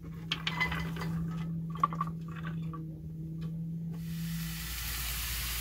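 Shredded beetroot strips tipped from a bowl into a frying pan with olive oil, a scatter of soft wet squishes and light clicks. About four seconds in, a steady sizzle of the beets frying in the hot oil takes over.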